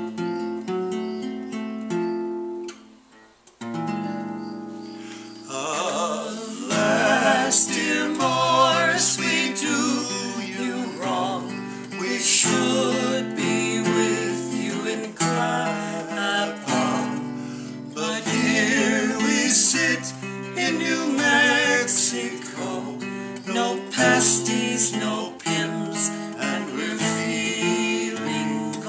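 Acoustic guitar playing, with a short break about three seconds in; a man and a woman then start singing together over it.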